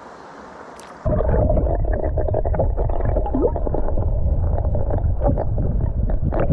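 Stream water heard through a microphone held underwater: a loud, muffled rushing rumble with many small clicks and knocks, and a brief rising squeak near the middle. It starts abruptly about a second in, after a quieter open-air stream hiss.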